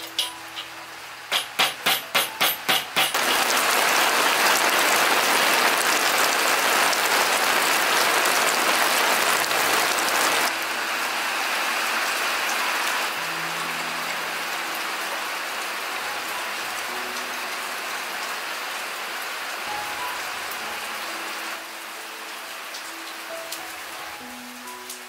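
Steady rain pouring and pattering, heaviest in the first half and easing down in steps later. Just before the rain sets in comes a quick run of about seven sharp snips from kitchen scissors cutting through raw chicken feet.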